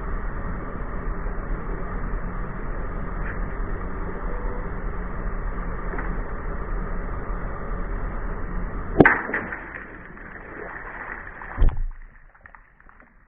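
Steady car noise, then a sharp cracking snap about nine seconds in with smaller crackles after it, and a second heavier thud about two and a half seconds later: an object cracking as a car wheel runs over it.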